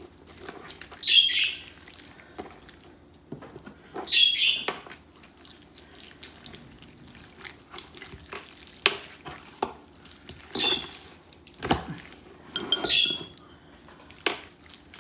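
Wet squelching of hands kneading and rubbing sauce into a raw pork shoulder, in short irregular bursts with a few sharp clicks between.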